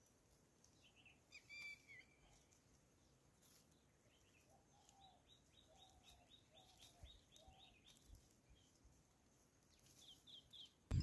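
Near silence with faint bird calls: scattered high chirps, with a quick run of them about five seconds in and a few lower notes beneath.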